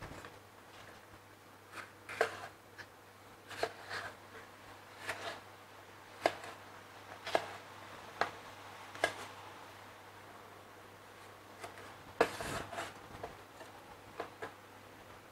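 Chinese cleaver slicing a red bell pepper, its blade knocking on a bamboo cutting board in single strokes about a second apart, with a quick cluster of knocks a little past the middle.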